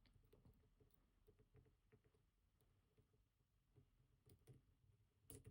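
Near silence with faint, scattered ticks of a lock pick working the main-stack pins of a Robur 2391 safe deposit box lock cylinder.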